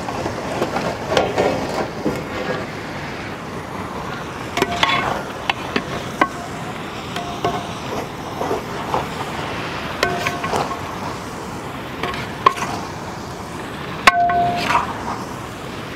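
Chicken pieces sliding off a metal tray into a large iron cooking pot, then a long metal ladle stirring them, with irregular clanks and scrapes against the pot and a few brief metallic rings. A steady sizzle runs underneath.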